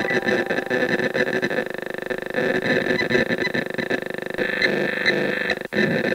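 Radio-frequency meter's audio output giving a loud screeching, crackling buzz that pulses raggedly as a nearby cell phone connects to the cell tower. The sound goes with the meter's highest, severe-danger reading. It breaks off for an instant near the end.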